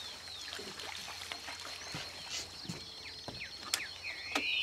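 Birds calling and chirping at dawn over a steady high-pitched drone, with a short fast trill in the middle and two sharp clicks near the end.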